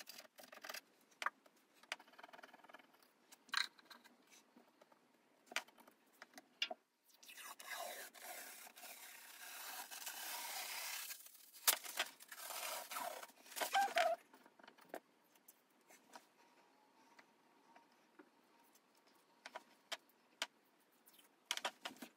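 A scraper working soaked old wallpaper off a wall, with the paper tearing away. Scattered taps and short scrapes run throughout, with one long stretch of scraping from about seven to eleven seconds in.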